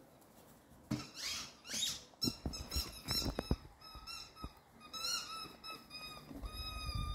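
A dog chewing a squeaky rubber toy chicken, setting off a rapid run of short, high squeaks, about two or three a second, with soft knocks among them. Two short rushes of noise come about a second in, before the squeaking starts.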